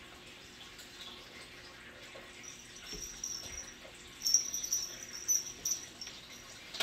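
Two house cats fighting on a cat tree, making short high-pitched sounds that start about a third of the way in and are loudest a little past the middle.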